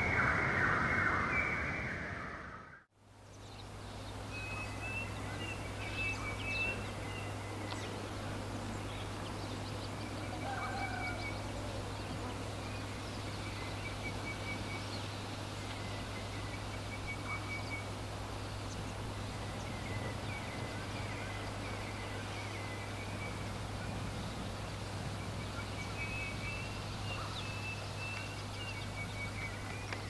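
Forest ambience: small birds chirping and trilling at intervals over a steady hiss and a low steady hum. About three seconds in, a louder, denser sound cuts off abruptly before the birds begin.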